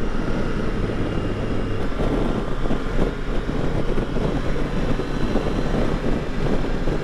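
Wind rushing past a helmet microphone while riding a Triumph Tiger Sport 660 motorcycle, its three-cylinder engine running underneath at a steady pace.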